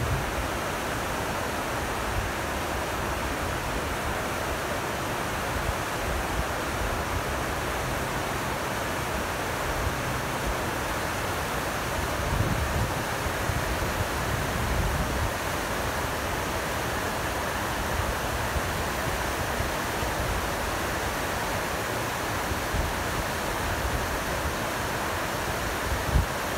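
Glacial meltwater stream rushing over rocks, a steady hiss of water, with a few low rumbles of wind on the microphone near the middle.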